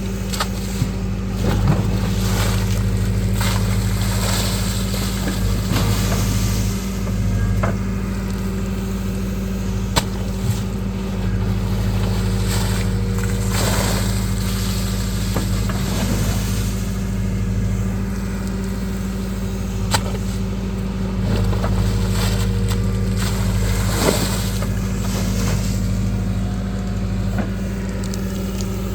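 A motor runs steadily with a low hum, under hissing that swells and fades every few seconds, with a few sharp clicks.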